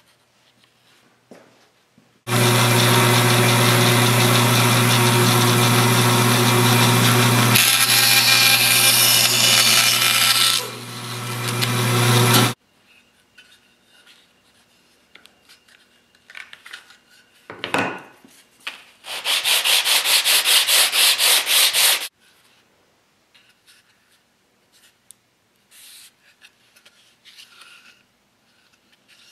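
A woodworking power tool's motor runs loudly for about ten seconds, its sound changing partway through, then stops abruptly. Light knocks and rubbing follow, then a few seconds of rapid, evenly pulsing rasping.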